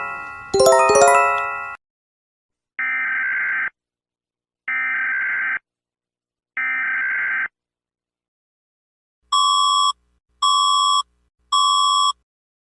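Emergency Alert System alarm audio. A chime dies away in the first two seconds, then three one-second bursts of buzzy digital data tones sound about two seconds apart. After that come three short, high electronic beeps about a second apart.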